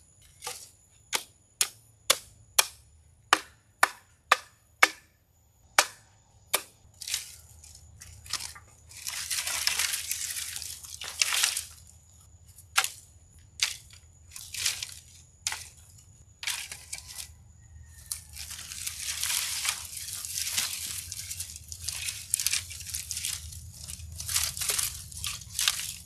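Dry brush being piled: a quick run of sharp cracks from dry sticks, about two a second, then long rustling crashes of dry branches landing on the brush pile.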